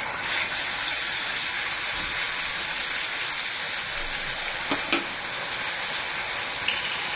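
Oil sizzling steadily in a wok with frying chopped ginger, garlic and green chilies and freshly added tomato sauce, stirred with a wooden spoon. One sharp tap stands out about five seconds in.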